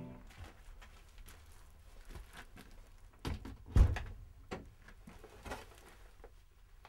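Handling noises at a door in a small room: the handle and latch clicking, with a few soft knocks and one sharp thump a little before the middle.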